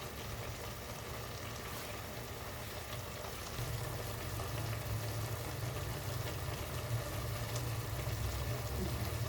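Pan of spinach and meat sizzling gently on the stove, with a low hum underneath that grows louder about three and a half seconds in.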